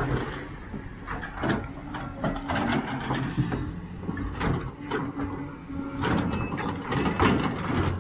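Sumitomo 490 hydraulic excavator's diesel engine running steadily as its bucket digs into soil and rock, with irregular knocks and clicks of stones against the bucket.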